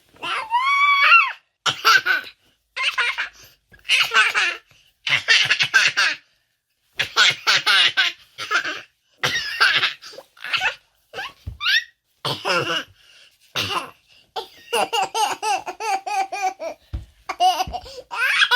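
A baby laughing in repeated bursts of high-pitched giggles and belly laughs, with brief pauses between them.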